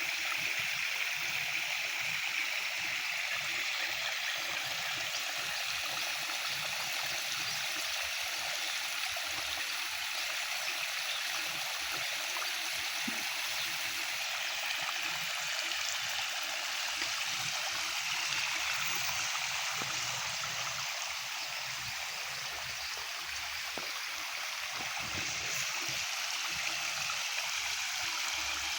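Water running steadily, a continuous rushing flow like a small stream.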